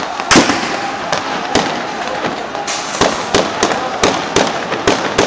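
Gunfire heard from a distance: a loud shot shortly after the start, then about a dozen more sharp cracks at uneven intervals over a steady background noise.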